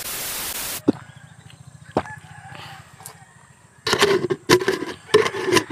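A short burst of TV static hiss, cut off sharply under a second in. Then a quiet stretch with a few faint clicks, and from about four seconds in a louder run of sharp clicks and short pitched sounds.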